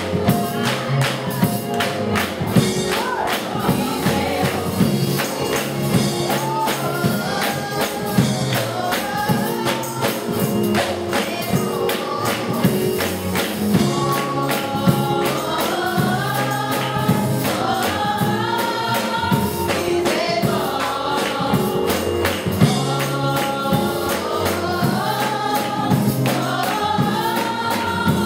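Gospel worship song sung by a small group of women's voices, with steady bass notes beneath and tambourine-like percussion keeping a steady beat.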